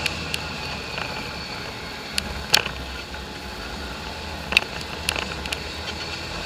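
Polaris off-road vehicle driving along a rough dirt trail: a steady low engine and drivetrain drone under a scatter of sharp clicks and knocks. The loudest knock comes about two and a half seconds in, another near the middle.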